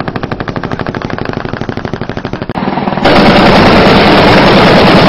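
Automatic gunfire: a sustained burst from a machine gun at about ten rounds a second. About three seconds in, it gives way abruptly to a much louder, harsh, continuous roar of noise.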